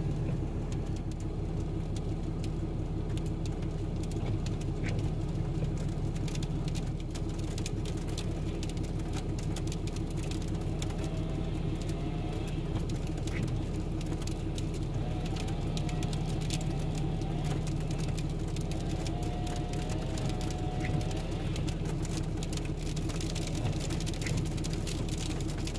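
2017 Ram 3500's 6.7-litre Cummins turbo-diesel inline-six idling steadily, heard from inside the cab. Light ticks of wet snow hit the windshield, and faint wavering tones come and go through the middle.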